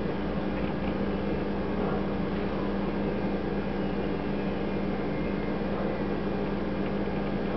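Steady mechanical hum from a running appliance: a constant low tone over an even hiss that does not change.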